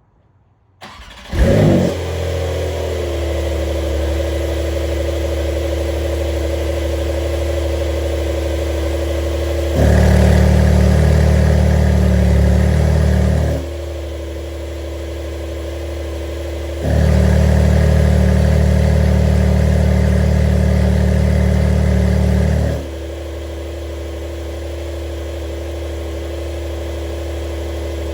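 2022 Porsche 911 GTS 4 (992) twin-turbo flat-six cold starting: a short crank about a second in, a loud flare, then a steady cold idle. Twice the idle abruptly turns much louder and deeper for several seconds and then drops back, as the Cargraphic exhaust valves are switched open and closed.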